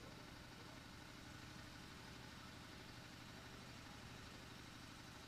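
Near silence: a faint, steady low hum.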